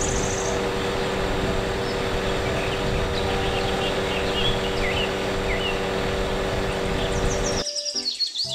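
Truck-mounted aerial work platform running with a steady hum while its boom is raised, birds chirping faintly around the middle; the sound cuts off shortly before the end.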